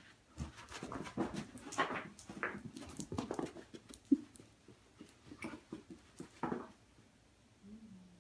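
Basset hound making short play vocalizations in a quick string of bursts, with a sharp knock about four seconds in.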